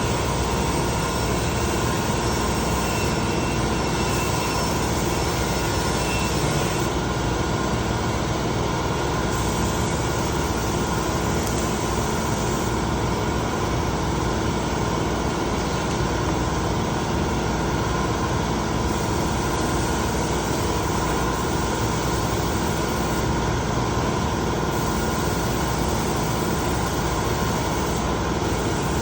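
A machine running steadily: an even whirring drone with a constant hum, without a break or change in speed.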